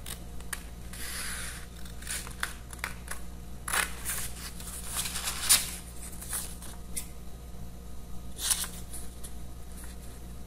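Scissors cutting out a paper pattern piece: irregular snips and paper rustling, the loudest cut about five and a half seconds in.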